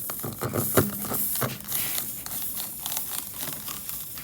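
Tire plug kit reamer rasping in and out of the puncture hole in a run-flat tire, clearing it out for a plug: a quick run of scraping clicks, busiest in the first second and a half, then lighter strokes.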